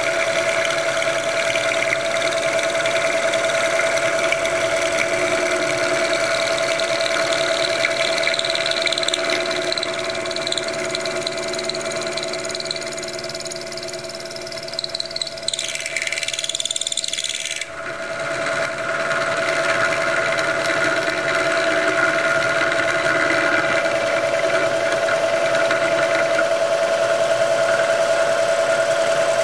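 Milling machine's end mill cutting into the inside of an aluminium piston to lighten it: a steady spindle whine with the cutting noise of the tool in the metal. About halfway the cutting sound eases and changes for a few seconds, then the steady cut picks up again.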